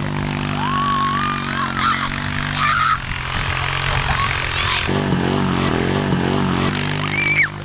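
Four-wheeler (ATV) engine running steadily as it tows a sled through snow, its note wavering about two-thirds of the way through. A few short high-pitched yells from the riders ride over it, the last one a falling squeal near the end.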